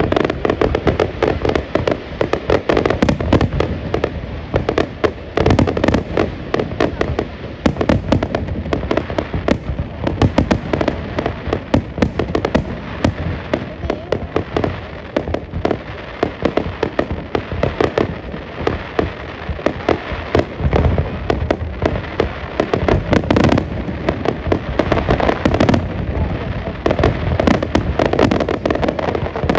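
Fireworks display: a continuous barrage of bangs and crackling bursts, many each second, with no pause.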